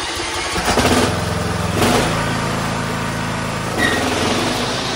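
Toro zero-turn mower's freshly swapped-in 19 hp, 597 cc Kohler engine running, its note shifting about two seconds in and again near four seconds.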